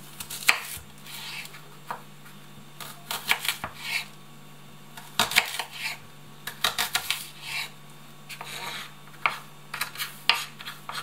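Kitchen knife cutting and dicing an onion on a wooden cutting board: irregular knocks of the blade on the board, coming in short quick runs with pauses between, over a steady low hum.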